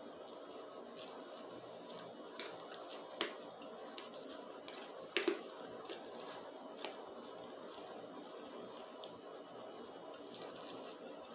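Close-miked eating of spaghetti: soft wet mouth clicks and smacks of chewing over a steady background hiss, with a few sharper clicks, the loudest about five seconds in.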